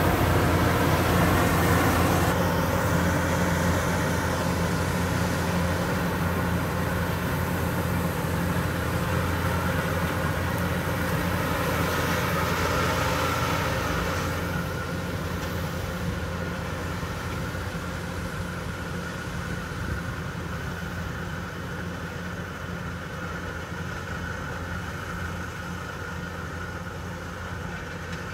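Kubota DC105X combine harvester running steadily while cutting rice, a continuous engine drone with threshing noise. It grows fainter as the machine moves away, dropping noticeably about halfway through.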